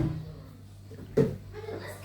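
A single sharp knock about a second in, over a steady low hum.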